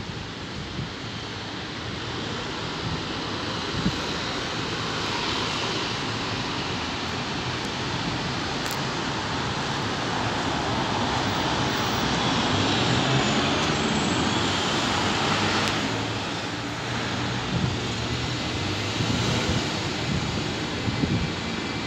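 Road traffic passing on the street, a steady noise that swells to a peak about halfway through and then eases. A bus engine runs near the end.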